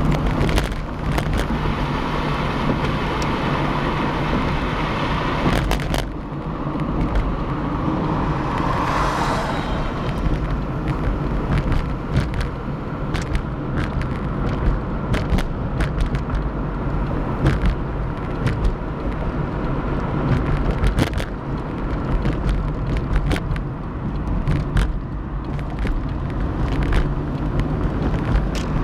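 A car driving at freeway speed on concrete interstate pavement: steady tyre and engine hum with frequent short sharp clicks. A whooshing swell rises and fades about nine seconds in.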